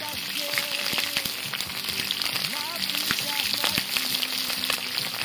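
Chicken sausages sizzling in hot oil in a wide steel pan over a wood fire: a steady frying hiss with many small crackling pops.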